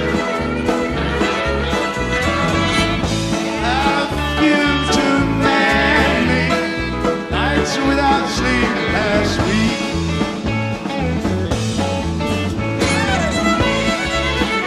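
Rock band playing live, with drums and bass guitar keeping a steady beat under electric guitar, piano and violin.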